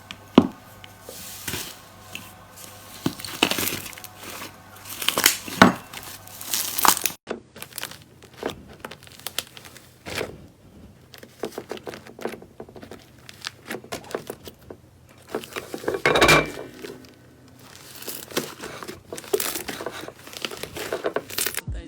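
Slime being squeezed and poked by hand: irregular crackling, popping and squishing, with an abrupt change about seven seconds in.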